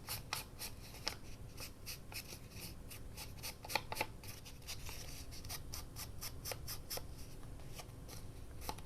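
Ink being applied to the edges of a paper tag in short, quick scratchy strokes, about three to four a second at first and sparser later on.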